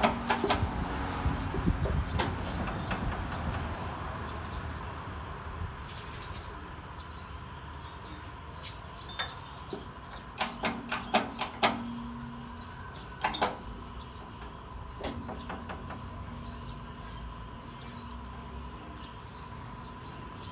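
Light metallic clicks and clinks of a steel crankshaft flywheel half and crank pin being handled and set on the bed of a hydraulic shop press. They come in short clusters, a few near the start and more about ten to fifteen seconds in, over a faint steady tone.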